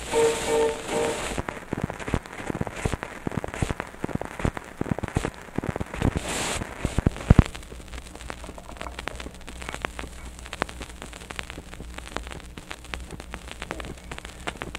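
Surface crackle and pops from a homemade Recoton disc record playing under the stylus, in a gap between recorded passages. The crackle is dense at first and thins out later, with one sharp, loud click about seven seconds in. A brief bit of music fades out about a second in.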